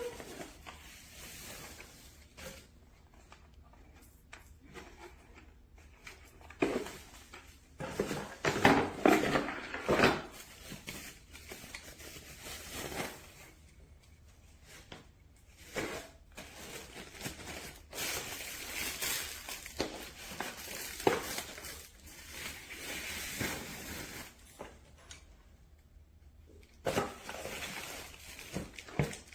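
Irregular handling noises: rustling and crinkling with light knocks, louder for a couple of seconds about eight seconds in.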